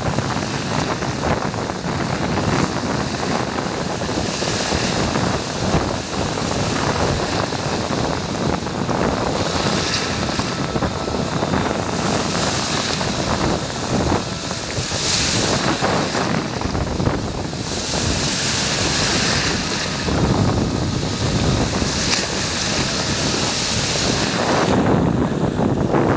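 Red Sea waves washing onto the beach, the hiss swelling and fading every few seconds, with wind buffeting the microphone.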